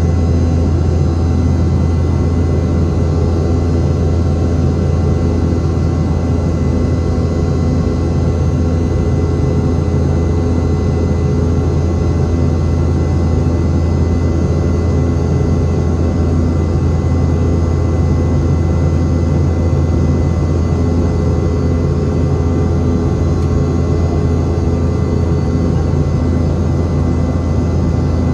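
Boeing 717-200 airliner's rear-mounted Rolls-Royce BR715 turbofan engines, heard from inside the cabin, giving a steady, unbroken drone with a strong low hum and a few faint steady whines above it.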